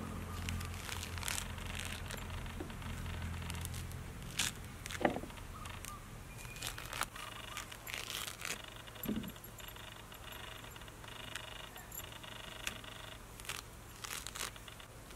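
Pomelo peel and thick white pith being torn apart by hand, with scattered tearing, crackling and small sharp snaps. A low steady buzz runs through the first four seconds.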